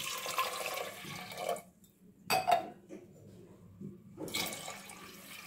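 Water poured from a glass into a steel pressure cooker onto soaked split lentils, splashing into the pan. One pour of about a second and a half, a short sharp sound a moment later, then a second, fainter pour near the end.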